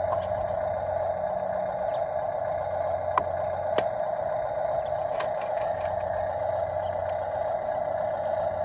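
Small plastic toy trash bins handled and set down by hand, giving a few sharp plastic clicks, over a steady, unidentified hum.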